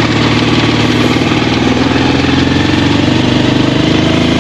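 Bajaj Pulsar 150's single-cylinder engine running steadily under way at low road speed, heard from the rider's seat.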